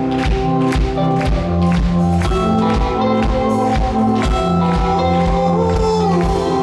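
Live rock band playing, with keyboard chords held over a steady beat of about two hits a second.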